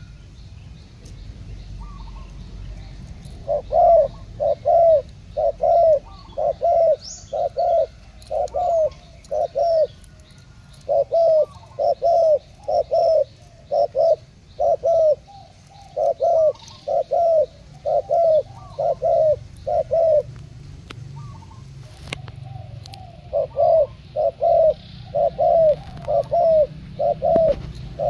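Spotted doves cooing in long runs of short, evenly repeated coos, nearly two a second, broken by brief pauses; two caged decoy doves are cooing against each other in a cooing contest. Faint chirps of small birds behind.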